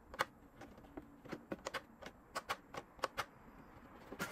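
About a dozen sharp, unevenly spaced plastic clicks and taps as the pop-up headlight pods on a Tamiya Celica ST165 RC car body are worked down by hand.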